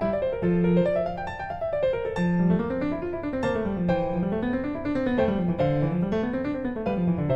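Background piano music: rippling runs of notes that rise and fall in a repeating wave.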